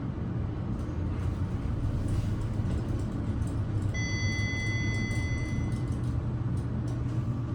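Elevator car travelling with a steady low hum. About halfway through, a single electronic beep sounds and holds for nearly two seconds before stopping.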